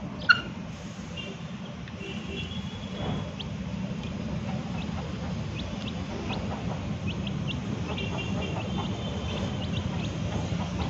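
Domestic chicks peeping in short, high chirps, scattered and more frequent in the second half, over a steady low hum. A single brief, sharp, loud sound comes about a third of a second in.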